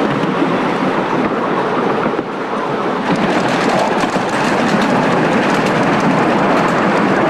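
Ride-on 7.25-inch gauge miniature train running along its track, heard from a passenger car: a steady rumble of wheels on rail with light clicking.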